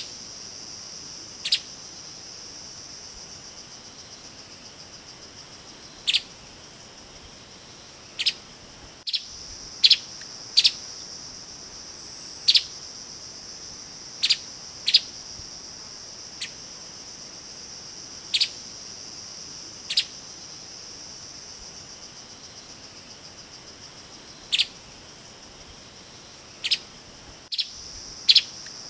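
Streaked spiderhunter giving short single call notes at irregular intervals, about sixteen of them, sometimes two in quick succession. Under them runs a steady high-pitched insect drone.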